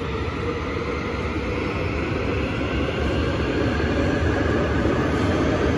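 AREX airport train at the platform, its electric running sound a steady rumble with a whine that rises slowly in pitch as it grows louder.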